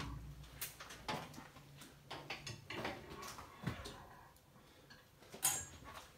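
Irregular clicks and light knocks of footsteps and handling in an empty train carriage, with one sharper knock about five and a half seconds in.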